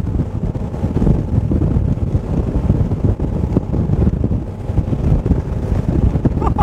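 Heavy wind buffeting on the microphone aboard a fast sports cruiser running at speed into the wind over light chop. Underneath is the steady drone of its twin Mercury diesel engines and the hull.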